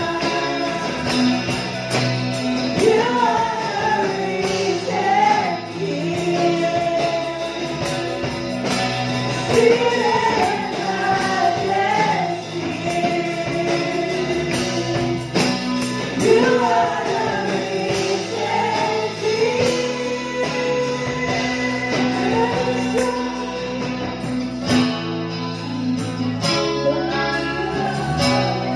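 Live praise-and-worship song: women singing into microphones over acoustic guitar and a drum kit.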